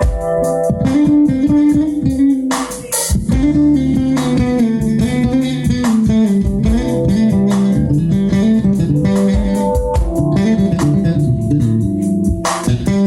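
Live band playing an instrumental passage during a sound check: guitar lines over a moving bass guitar, with a few sharp percussive hits.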